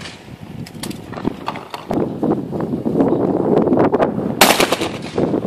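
A single shotgun shot about four and a half seconds in, sharp, with a short echo after it. Before it there are scattered small clicks and a low outdoor haze.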